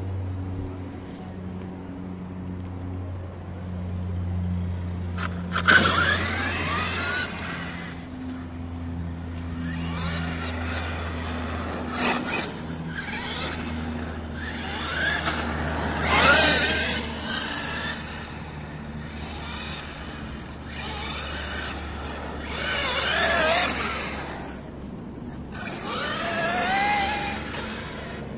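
Traxxas E-Revo 2.0 electric RC monster truck driving on asphalt: repeated bursts of electric motor whine, rising and falling as it speeds up and slows, mixed with tyre noise on the asphalt, about five times. A steady low hum runs underneath, and a sharp click comes about six seconds in.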